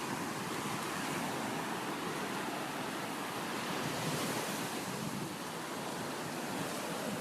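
Sea waves breaking and washing on a sandy beach, a steady surf hiss with gentle swells.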